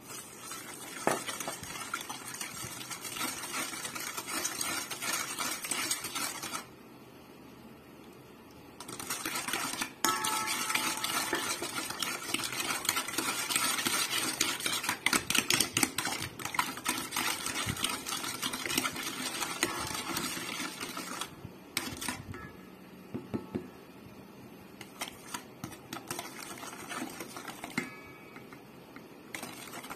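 Stirring in a stainless-steel mixing bowl: a utensil scraping and clicking against the metal as a liquid mixture and then flour are mixed. There is a short pause about seven seconds in, the busiest stretch is in the middle, and near the end it thins to scattered taps.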